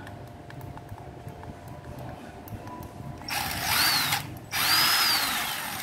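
Cordless drill-driver motor run twice on the trigger, about a second each, its whine rising and falling in pitch as it spins up and slows; a few light clicks come before.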